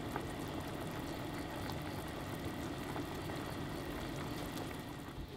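Massaman curry simmering in a pan: a thick sauce bubbling, with a steady patter of small bubbles popping.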